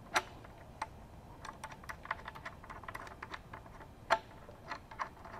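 Washers and nuts being fitted by hand onto the screws of a propeller hub: a run of small, irregular metal clicks and clinks, with two sharper knocks, one just after the start and one about four seconds in.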